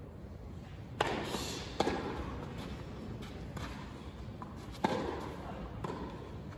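Tennis ball being struck by rackets and bouncing on the clay court: sharp pops about a second in, just under two seconds in and near five seconds, over a steady background hum of the stadium.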